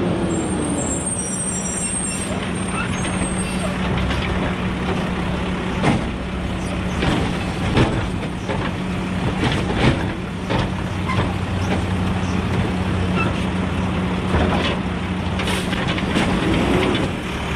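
Automated side-loader garbage truck's diesel engine running steadily as it pulls up and idles at the curb. Several sharp knocks and clatters come from the hydraulic arm gripping and lifting a wheeled cart.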